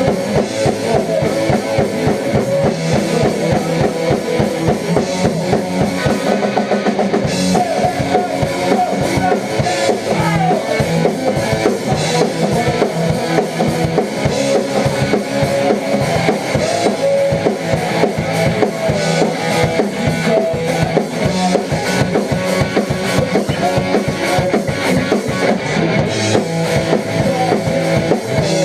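Live rock band playing a fast indie-rock song: a driving drum kit beat with heavy bass drum under electric guitars.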